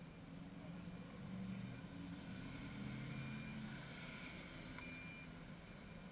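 Car engine idling, heard faintly from inside a stopped car's cabin as a steady low hum, with a light click about five seconds in.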